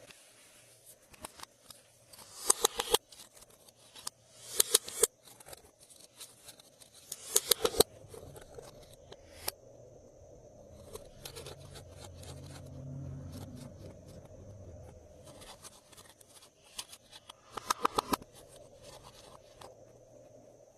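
Glossy slime being squeezed and stretched by hand, giving bursts of rapid sticky clicks and pops, four times, with quieter crackling in between.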